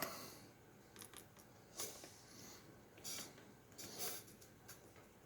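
Lock pick and tension wrench working in a lock's keyway: a handful of faint metallic scrapes and clicks about a second apart, the first the loudest.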